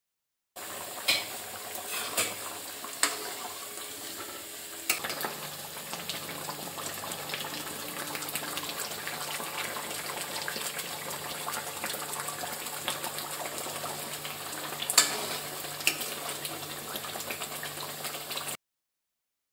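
Colocasia curry bubbling steadily at a boil in a metal wok, with a few sharp metal clinks against the pan, the loudest about fifteen seconds in.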